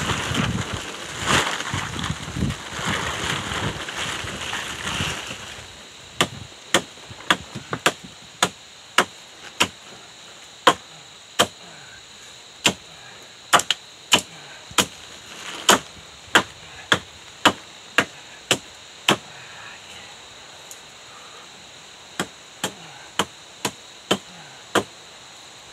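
Nails being hammered into birch logs: a long run of sharp strikes, about one to two a second, with a short pause partway through. A rushing noise fills the first few seconds before the strikes begin.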